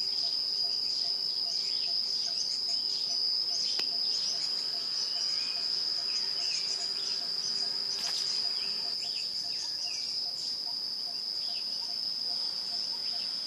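A steady high-pitched insect trill, with many short bird chirps over it and a fainter lower call pulsing a few times a second.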